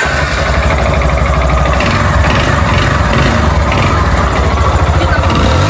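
Yamaha Fazer 250's single-cylinder engine starting and idling with a rough, knocking running sound, which the mechanic takes for piston slap ('batendo saia') from a worn cylinder and piston.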